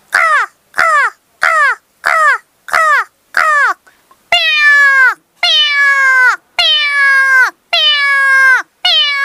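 A person imitating a crow's caw with the voice: six short, quick caws, each falling in pitch, then from about four seconds in a run of longer, drawn-out caws, about one a second.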